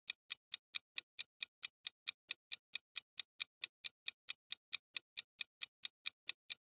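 Countdown-timer clock-ticking sound effect: sharp, even ticks at about four to five a second, marking the seconds running out on a quiz question.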